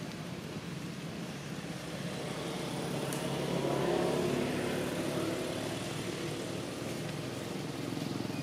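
A motor vehicle's engine passing, swelling to its loudest about halfway through and then easing off, over a steady low hum.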